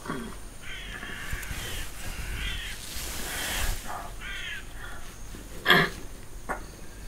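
A crow cawing, several harsh caws in a row. About six seconds in comes a single sharp thump, louder than the caws.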